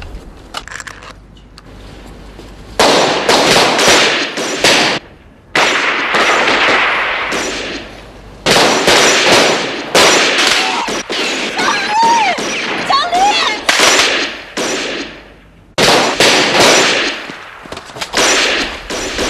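Rapid pistol gunfire in long, dense volleys, starting about three seconds in and broken by brief pauses about five, eight and sixteen seconds in.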